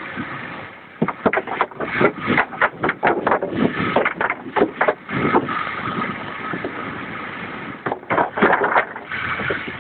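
Motorcycle riding over a wooden-plank bridge deck: the loose boards clatter and knock irregularly under the tyres, in two bouts, over the steady running of the engine.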